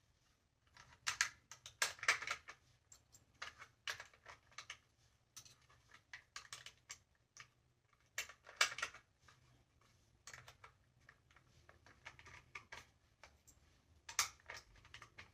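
Rifle cartridges being pressed one by one into a magazine: a faint, irregular run of metallic clicks, with louder clusters about two seconds in, near the middle and near the end.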